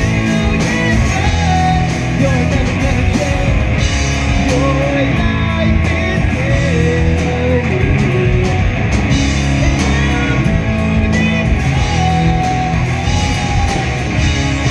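A live rock band playing a song: electric guitars and bass over a steady drum beat, with singing carrying the melody.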